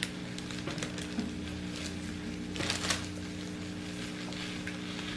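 Faint crinkling and clicking from slime being mixed with foam beads, a little louder for a moment near the middle, over a steady low hum.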